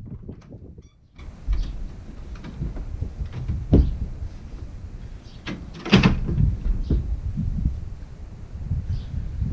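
A porch door swinging open and shut with footsteps and knocks on a wooden deck; the loudest sound is a sharp bang about six seconds in.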